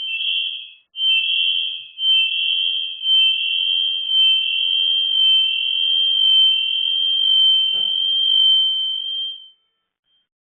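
High-pitched electronic alarm tone: a few short beeps at first, then a continuous wavering tone that cuts off about nine and a half seconds in. Faint knocks and clicks sound under it.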